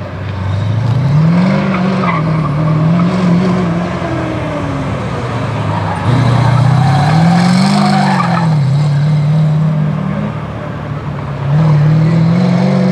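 A car's engine revving hard and easing off as it is driven through tight cone turns on an autocross course, its pitch climbing and dropping back three times. There is some tyre squeal in the corners.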